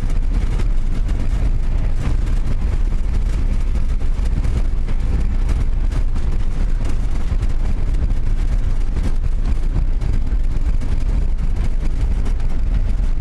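Vehicle driving over a rough steppe track, heard from inside: a steady low rumble of engine and tyres with occasional knocks.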